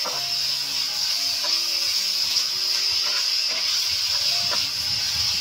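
Pork belly in spice paste sizzling steadily in a frying pan, with a metal spatula scraping through it several times. Quieter background music with held plucked notes plays underneath.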